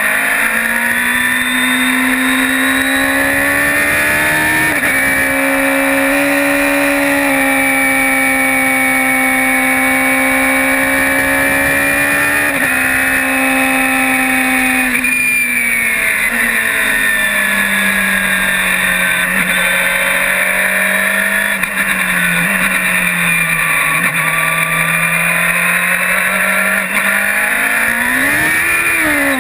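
Radical SR3 race car's motorcycle-derived four-cylinder engine heard from the cockpit, running hard at high revs. Its pitch climbs and steps down through gear changes, sags lower for a long stretch past the middle, and rises sharply just before the end.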